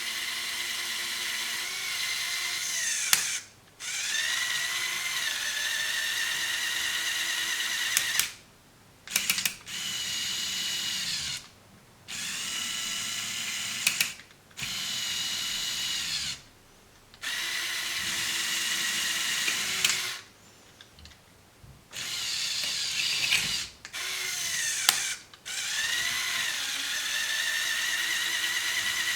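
LEGO Power Functions electric motors whirring through plastic gears on a remote-controlled LEGO excavator, running in stretches of a few seconds with short pauses between. The pitch dips and rises as the load changes, with occasional sharp clicks.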